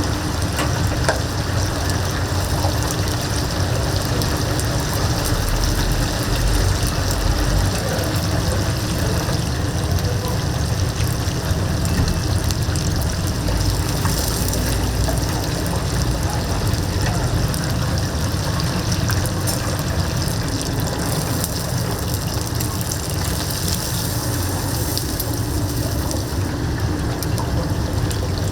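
Whole chickens deep-frying in a vat of hot oil, a steady sizzle.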